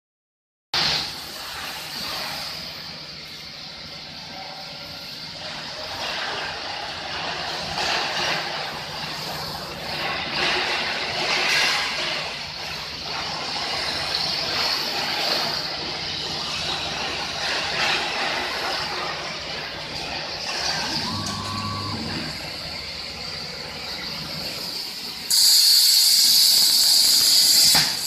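Steady background machine noise, then near the end a CNC plasma torch's arc strikes and a loud, steady hiss starts suddenly as the torch cuts metal plate.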